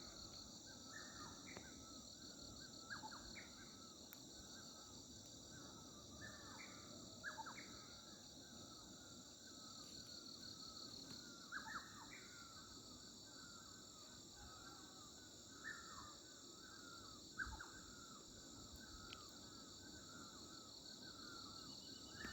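Songbirds chirping and singing in short repeated phrases, over a steady high trill of insects.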